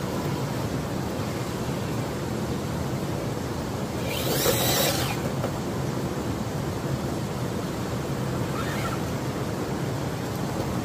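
Steady wind noise on the microphone, with a brief louder rush of hiss about four seconds in and a fainter one near the end.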